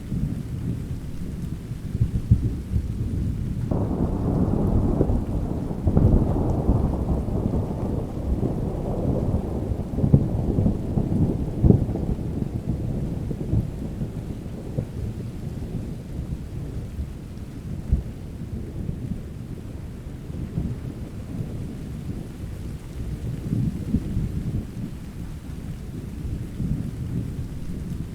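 Thunderstorm with rain and continuous deep, rolling thunder. A louder peal of thunder breaks in about four seconds in and slowly dies away over the next several seconds.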